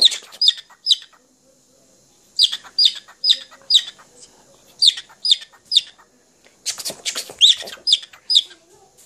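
Lutino cockatiel chirping: runs of short, sharp, falling calls, three to five at a time, with brief pauses between runs.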